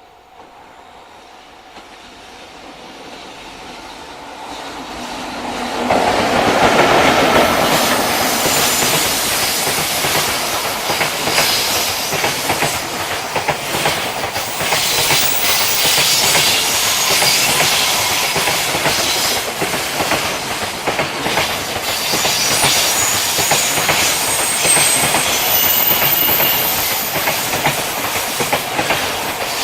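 Freight train approaching and passing close by: the sound builds over the first six seconds, then a long, loud run of wagon wheels clattering over the rail joints, with a few brief high-pitched wheel squeals in the last few seconds.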